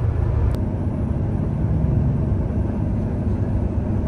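Heavy diesel construction machinery running steadily, a deep low rumble with no change in pace.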